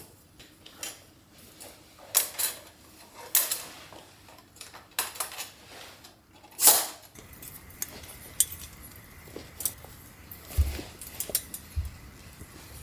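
Metal camping gear being handled: a series of clinks and clatters, the loudest about seven seconds in, followed by lighter taps and a couple of dull thumps near the end.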